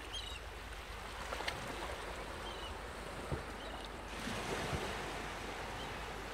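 Steady background hiss with a few faint, short, high chirps and light clicks; the hiss grows a little brighter about four seconds in.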